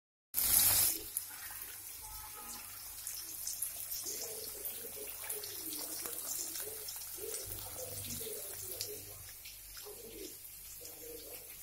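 Chopped tomatoes frying in hot oil in a kadai: a steady sizzle with fine crackles, loudest in the first second.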